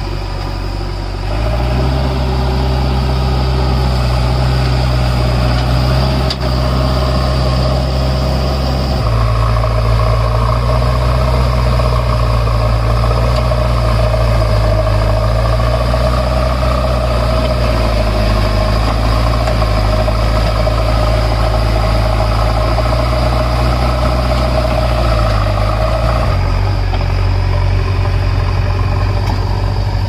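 JCB 3DX backhoe loader's diesel engine running under hydraulic load as it works the digging arm. Its speed steps up about a second in, holds steady, and drops back a few seconds before the end.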